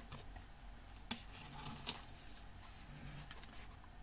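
Faint handling of a fold-out cardboard CD digipak, with light rubbing and two small clicks, one about a second in and one just before the two-second mark.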